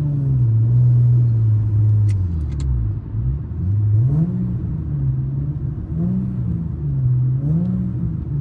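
Car engine and exhaust fitted with an added resonator, running under way. Its note drops as the car slows, then rises and falls again several times as it pulls away. The resonator is meant to cut the exhaust rasp and drone, and the driver hears it as less bad than before.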